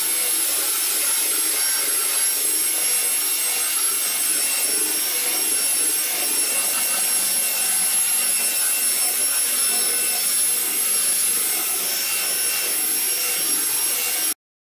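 Handheld electric belt sander running steadily on a wood tabletop: a high whine over the hiss of the belt on the wood. It stops abruptly near the end.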